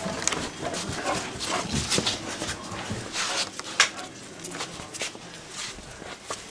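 A bullmastiff snuffling and panting close up, with irregular rustling and a few sharp knocks; the sharpest click comes a little before four seconds in.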